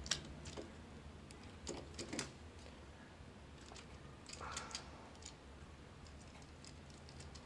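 Scattered small plastic clicks and light handling noise as the joints and parts of a Transformers Masterpiece figure are turned and fitted by hand, a few clicks close together near the start and a short cluster about halfway through.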